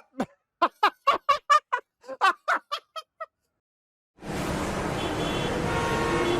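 A quick run of about a dozen short, squeaky, voice-like pitched sounds, each bending in pitch, stopping after about three seconds. Music then starts abruptly about four seconds in and holds steady.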